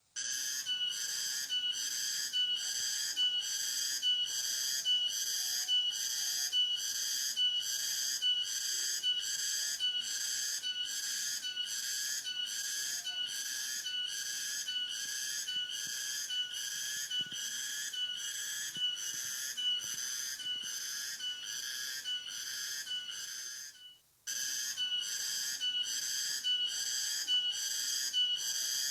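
A high-pitched whistling sound pulsing evenly, about three times every two seconds. It breaks off abruptly for a moment about 24 seconds in, then carries on.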